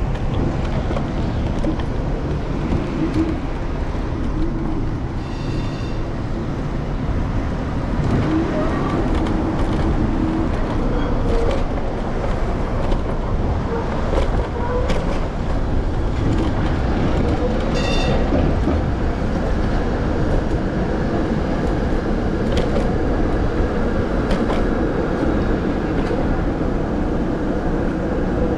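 Steady low rumble of wind and road noise from an electric scooter riding through city traffic, picked up by a handlebar-mounted camera, with scattered clicks and a short high-pitched tone twice, about five and eighteen seconds in.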